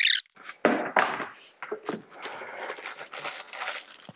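A cardboard shipping box being opened by hand: a short rasp at the start, two thuds as the flaps are pushed open, then plastic wrapping crinkling and rustling as the wrapped pressure-cooker parts are lifted out.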